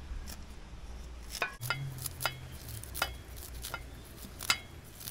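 Kitchen scissors snipping green onion stalks: a string of sharp clicks, one cut roughly every half second to second, irregularly spaced.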